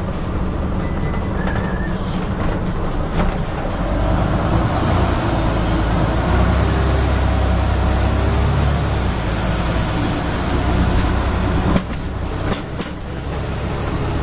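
Interior of a Scania N94UB double-decker bus on the move: the rear-mounted diesel engine and road noise build over the first few seconds, then run steadily under way. Near the end there are a few sharp rattles and a brief dip in the engine sound.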